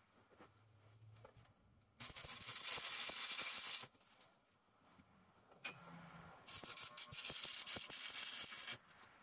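Stick-welding arc from a Miller Thunderbolt 225 welder, struck twice: two runs of steady hiss of about two seconds each, starting about two seconds in and again about six and a half seconds in, with quiet pauses between.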